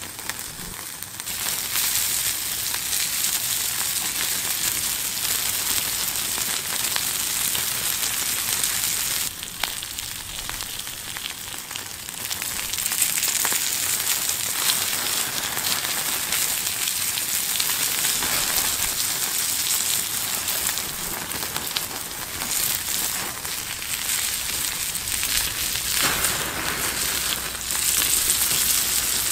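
Frenched lamb rib chops sizzling on a hot metal griddle plate over a fire: a dense, steady frying hiss with fine spitting crackles. The sizzle eases about nine seconds in, returns louder a few seconds later, and swells again near the end.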